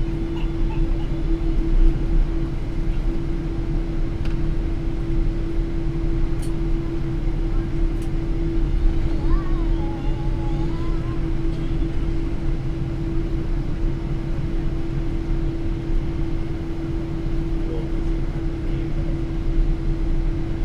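Steady cabin noise of a Boeing 777-300 airliner taxiing on the ground: a low rumble under a constant hum, with the engines at taxi power.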